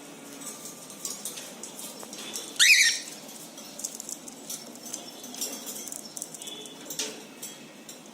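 A cockatiel gives one short, loud chirp about a third of the way in, among faint scratching and tapping.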